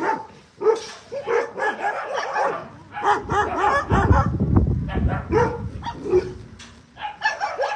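Young puppies whimpering and yipping in many short, rising-and-falling calls, with a burst of low rustling about four seconds in.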